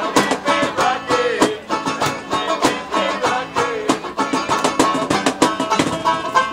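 Acoustic guitar music, strummed in a quick, steady rhythm.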